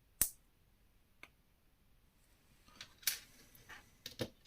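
LEGO plastic pieces being handled and clicked together: one sharp click just after the start, a faint tick about a second later, then a few lighter clicks and rustles in the second half.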